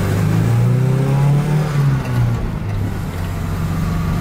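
Datsun 510's engine heard from inside the cabin, rising in pitch as the car accelerates. About two seconds in the note falls away, and the engine runs on at a steady lower pitch.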